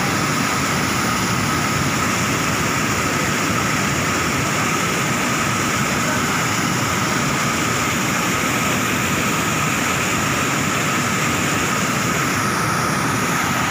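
Muddy floodwater pouring over a weir in a foaming torrent: a loud, steady rush of water.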